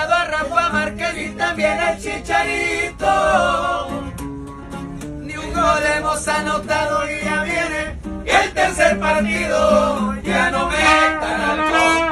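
A group of men singing a song together in Spanish to a strummed acoustic guitar, with a brief quieter stretch about four seconds in.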